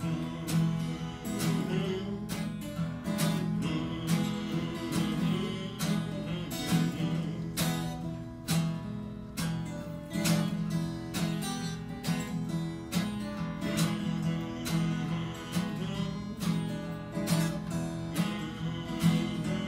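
Acoustic guitar played in a slow blues groove, strummed steadily throughout.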